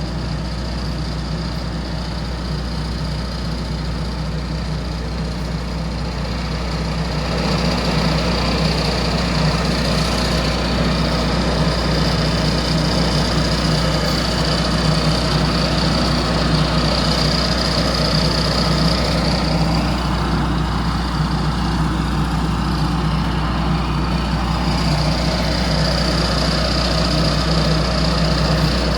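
Heavy construction machinery engine running steadily at night, a continuous low drone with a high whine over it, growing louder about seven seconds in.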